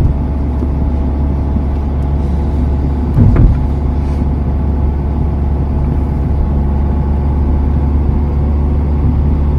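Steady road and engine drone heard from inside a moving car, with a brief thump about three seconds in.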